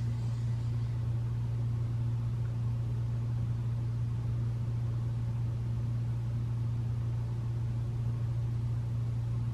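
A steady low hum with a faint hiss over it, unchanging throughout; nothing else happens.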